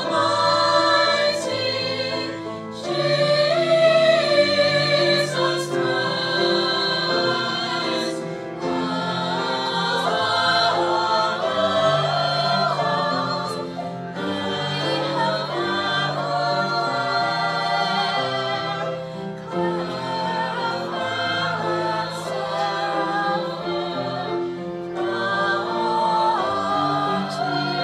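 Mixed choir singing in held notes, with violins and piano accompanying.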